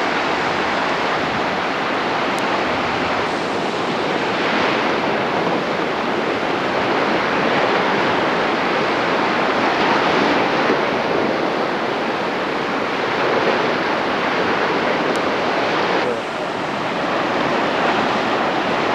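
Ocean waves washing in, a steady rushing that swells and eases every few seconds.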